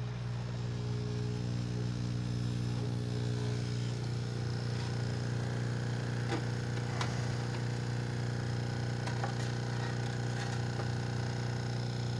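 Homemade froth flotation cell running: its stirrer and air supply give a steady low electric hum, with a few faint clicks in the middle.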